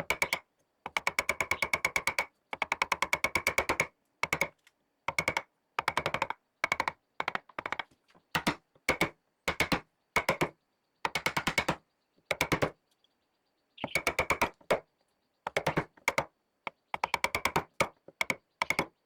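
Bursts of rapid, sharp tapping, about a dozen strikes a second, broken by short silences.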